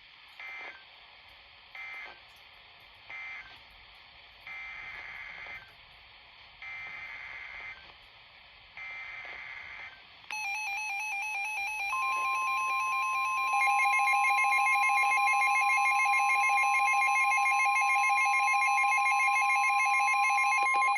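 NOAA Weather Radio SAME digital data bursts: three short end-of-message bursts, then three longer header bursts for the next warning. About ten seconds in, a weather radio receiver's warbling alarm starts, and soon after the steady 1050 Hz warning alarm tone joins it; both are loud and continuous, signalling a new warning being issued.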